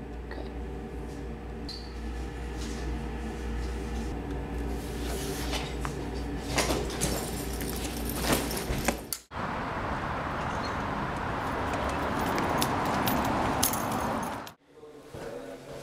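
Low steady room hum with scattered clicks and knocks as a backpack is picked up and swung onto the shoulders. After an abrupt cut about nine seconds in, a steady outdoor rushing noise runs for about five seconds, then cuts off suddenly.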